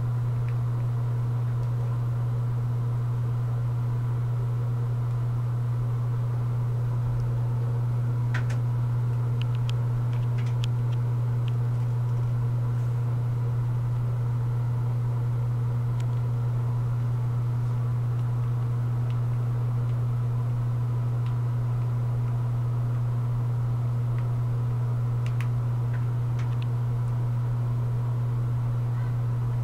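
A steady low hum with fainter steady tones above it, and a few faint clicks.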